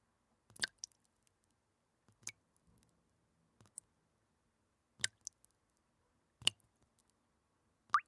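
Water dripping from a faucet, one drop at a time: a sharp plink about every second and a half, five in all, some followed closely by a smaller second drip.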